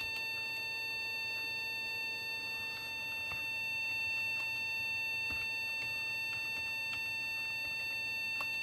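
Acer Aspire desktop PC running, giving off a steady high-pitched squeal with overtones, which the owner calls annoying squeaks. A few faint clicks sound over it.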